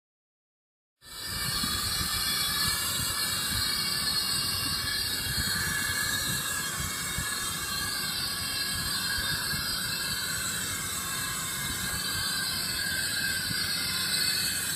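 Steady hiss of compressed gas rushing through a filler hose into a latex upper-air weather balloon as it inflates. It starts abruptly about a second in and holds even.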